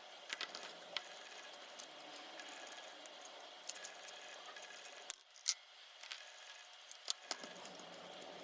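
Scattered small clicks and taps of small tools and parts being handled while a Canon PowerShot S110 compact camera is taken apart to fix a lens error, over a faint steady background hiss. The loudest tap comes about five and a half seconds in.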